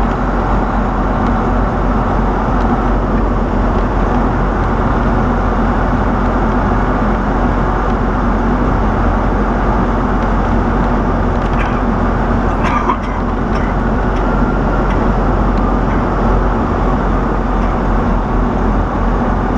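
Semi truck's diesel engine and road noise, a steady drone heard from inside the cab, with the truck's turbocharger failed and giving no boost. A few faint brief clicks come about two-thirds of the way through.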